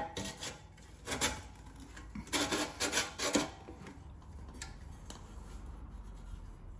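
Aftermarket exhaust tip scraping and rubbing against the tailpipe as it is worked onto the pipe, in a few short bouts over the first three and a half seconds, then quieter.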